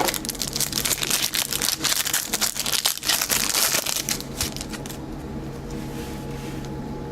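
Trading-card pack wrapper crinkling and tearing as it is opened by hand; it stops about five seconds in.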